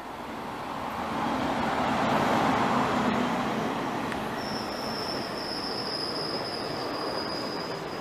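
Electric-hauled express passenger train of ICF coaches passing at speed close by. The rush of wheels on rail builds to its loudest about two to three seconds in, and a steady high-pitched squeal joins it from about halfway.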